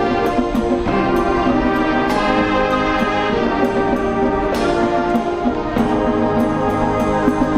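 High school marching band playing: brass sustaining chords over regular percussion strokes.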